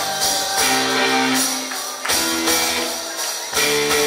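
Live band playing an instrumental passage: guitar and drums with cymbals, accented chord hits landing about every one and a half seconds.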